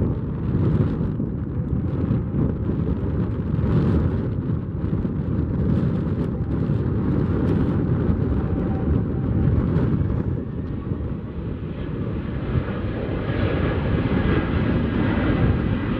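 Airbus CC-150 Polaris (A310-300) jet airliner's twin General Electric CF6-80C2 turbofans at high thrust as it climbs away on a go-around: a loud, steady, deep rumble that grows a little brighter near the end.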